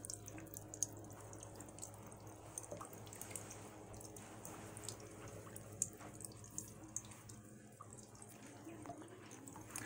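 Faint water trickling and dripping as a thin stream from an upturned plastic water jug runs onto a small popsicle-stick water wheel and splashes into the tub below, with many small scattered drip ticks.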